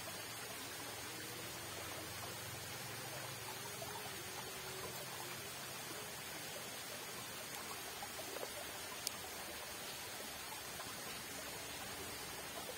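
Steady rush of water from a fast-flowing irrigation channel, with a single sharp click about nine seconds in.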